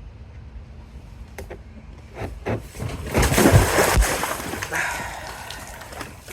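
Water splashing and sloshing: a few small clicks, then about two seconds in a loud burst of splashing that fades away over the next couple of seconds.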